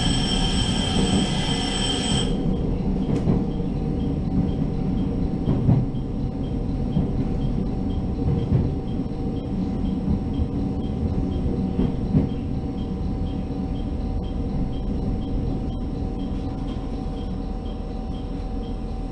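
Interior of a JR Hokkaido H100 diesel-electric railcar running along the track, a steady low rumble with a constant hum. A high-pitched wheel or brake squeal sounds for the first two seconds, and the running noise eases slightly toward the end as the railcar slows on the approach to a station.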